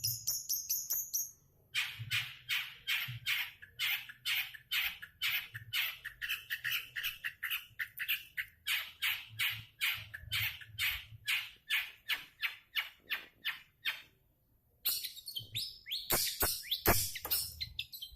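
A cendet (long-tailed shrike) calling in a long rapid series of short notes, about two to three a second, breaking off briefly twice.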